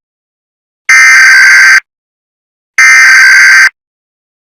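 Emergency Alert System SAME header: loud digital data bursts, each about a second long with a second of silence between them. The tail of one burst comes right at the start and two full bursts follow. This is the coded header that announces an EAS alert.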